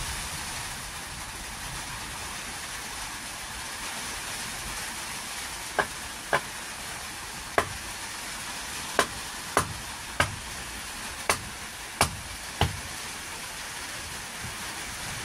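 Steady hiss of rain falling on a roof, with a run of about nine sharp taps in the second half.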